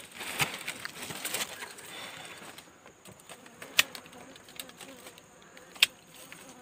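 Buzzing of a cluster of dwarf honeybees (little bees) on an exposed comb, with hand rustling in dry grass. A few sharp clicks cut through, the two loudest about four and six seconds in.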